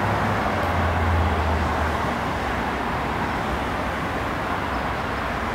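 Steady road traffic noise with a vehicle's low engine hum that fades out about two seconds in.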